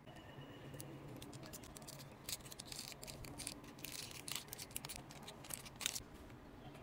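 Thin clear plastic shell being handled and squeezed in the fingers, crinkling in a run of quick, uneven crackles.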